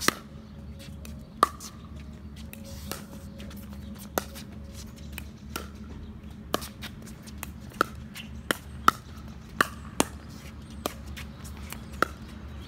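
Pickleball rally: paddles striking the plastic ball and the ball bouncing on the hard court, about a dozen sharp pocks, spaced out at first and coming faster about two-thirds of the way in.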